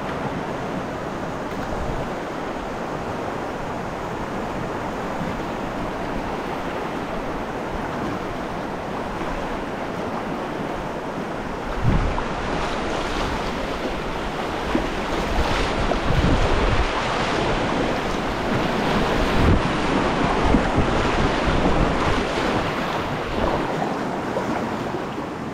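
Rushing river whitewater heard from a kayak, a steady wash that grows louder and rougher about halfway through, with a few low thumps of wind buffeting the microphone.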